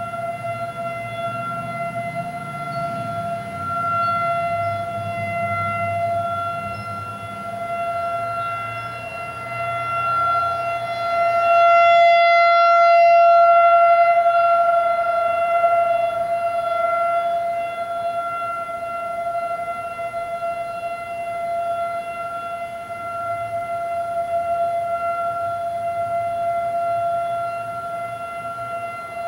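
Federal Signal 2001-AC rotating outdoor warning siren sounding its single steady tone at full speed, heard from indoors. The pitch holds level while the loudness swells and fades as the rotating head sweeps round, loudest about halfway.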